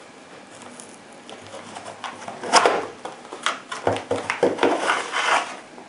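Packaging of a boxed flashlight being opened and handled. Quiet at first, then a run of irregular rustles, crinkles and sharp clicks from about two and a half seconds in.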